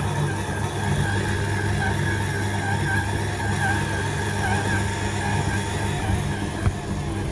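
Kenwood stand mixer's motor running steadily while its dough tool churns flour and water into a shaggy, crumbly dough. There is a single brief knock near the end.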